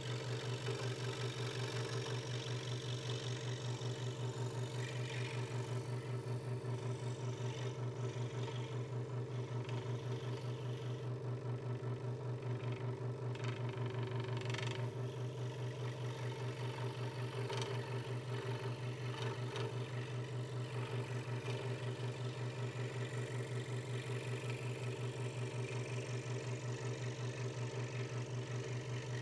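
Hegner Multicut 2S scroll saw running steadily, its reciprocating blade cutting letters out of a thin wooden board with a rapid, even pulsing hum. A few brief sharp ticks come through around the middle.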